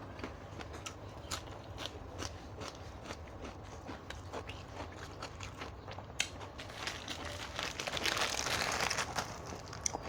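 Close-up eating sounds of spicy seafood papaya salad: scattered small clicks and crunches, with a louder stretch of crinkling, rustling noise about eight seconds in.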